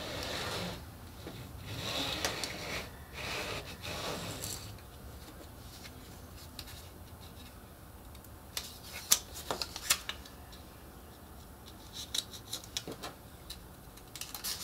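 A Fiskars cutting mat sliding and scraping across the tabletop as it is turned around, for the first few seconds. Then a few light, sharp clicks and taps as sticky notes are peeled from a pad and pressed down.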